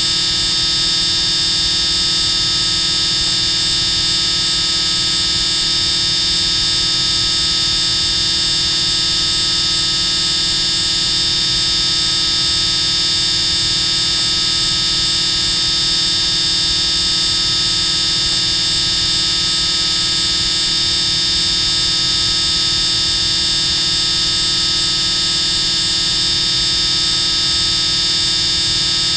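Extremely loud, steady buzzing that does not change in level or pitch, harshest in the high treble.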